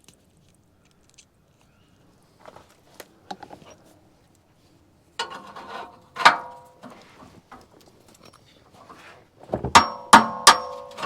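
Metal exhaust pipe clanking and knocking as it is worked loose at the rusted muffler joint: a few faint clicks, then sharp metallic hits that ring briefly, the loudest three close together near the end.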